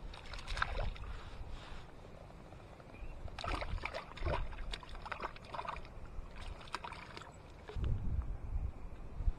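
Shallow water splashing in short spells as a small brook trout thrashes at the shoreline and is scooped out by hand, with a low rumble near the end.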